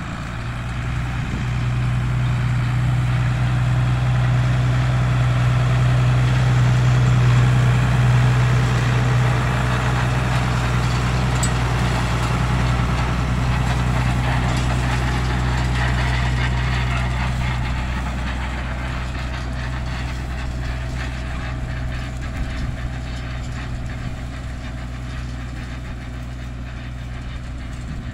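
Tractor diesel engine running at a steady speed while it pulls a rotary hay rake, with a hiss of the rake's turning tines sweeping the hay. The engine hum is strongest in the first half and fades steadily over the last third as the tractor draws away.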